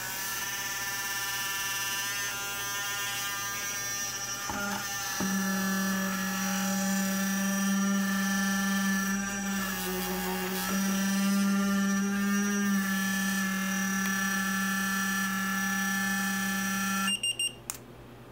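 Feiyu-Tech WG three-axis gimbal's motors buzzing steadily with several pitched tones, a stronger low hum joining about five seconds in. This is a fault that leaves the gimbal unusable. The buzz cuts off suddenly near the end, followed by a few clicks.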